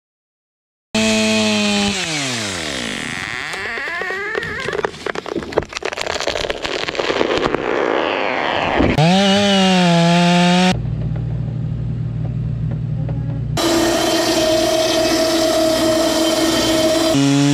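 Chainsaw cutting a large tree: the engine starts at high revs and drops in pitch as it loads into the cut, with a run of sharp wood cracks a few seconds in, then revs back up about nine seconds in. After that comes a steady machine hum at a constant pitch from a hydraulic band sawmill working a log.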